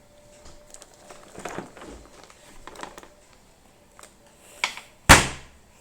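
A hand slapping down hard on a plastic Mighty Beanz pack: a single sharp, loud smack about five seconds in, after some quiet handling rustles and light taps.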